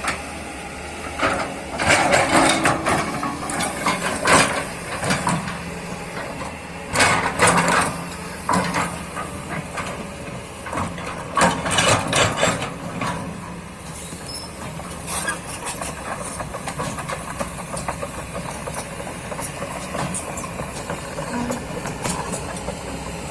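Kobelco excavator's diesel engine running steadily, with repeated loud knocks and scrapes, most of them in the first half.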